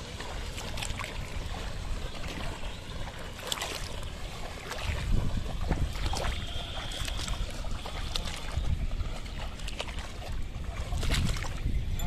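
Muddy water sloshing and splashing as a pair of bulls and a plough wade through a flooded paddy field, over a low rumble, with scattered short splashes.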